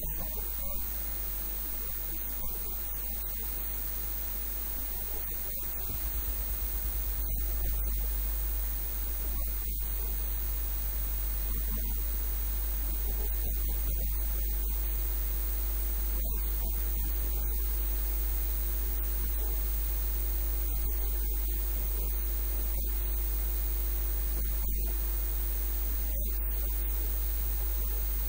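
Steady electrical mains hum with a constant high-pitched whine and hiss over it, growing louder about six seconds in.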